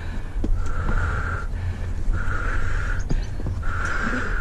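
A hiker breathing hard and loud close to the microphone, a heavy breath about every second and a half, over a steady low rumble of wind on the microphone.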